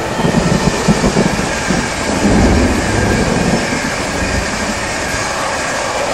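Electric passenger train passing at speed: a steady rush and rumble of wheels on the rails, a little louder about two seconds in.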